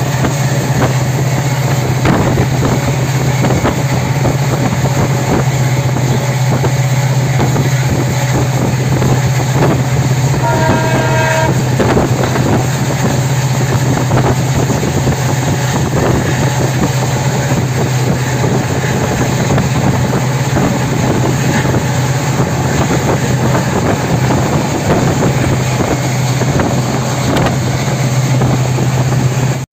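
Passenger train running at speed, heard from inside a moving coach: a loud, steady rumble of wheels on the rails with irregular clacks over the rail joints. A brief horn sounds about ten seconds in.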